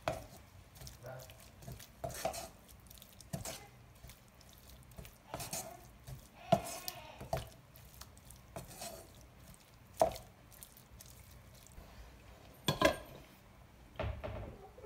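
A wooden spatula stirring a wet mixture of grated beetroot and carrot in milk in a non-stick wok. It gives irregular scrapes and knocks against the pan every second or two.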